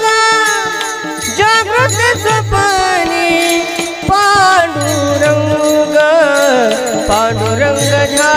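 Varkari devotional bhajan: a male voice sings long, drawn-out phrases with gliding, wavering pitch, over the steady clash of small hand cymbals (taal) and a pair of low drum strokes every two or three seconds.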